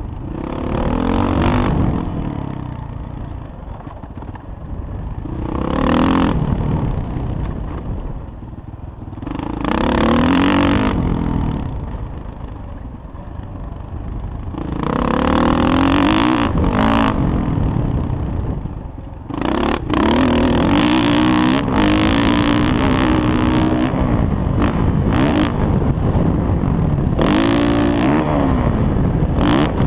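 Motocross dirt bike engine, heard from the rider's helmet, revving up and easing off in surges every four to five seconds through turns and straights, then held at high revs for most of the last ten seconds.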